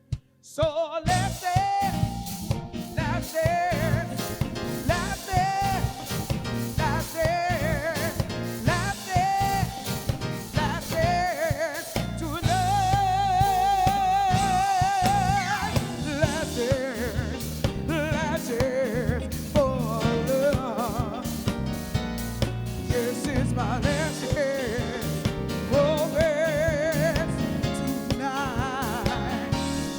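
Live soul band playing with a lead vocal and drums. The music starts up again after a short silent break about a second in.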